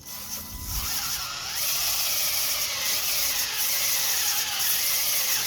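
Electric arc welding: a steady crackling hiss, the "bacon" sizzle of the arc laying a bead, starting at once and cutting off suddenly near the end as the arc is broken.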